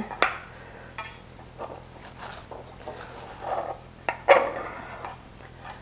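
A metal serving utensil cutting into baked oatmeal and scraping and clinking against the baking pan, in a few short scrapes and knocks, the loudest about four seconds in.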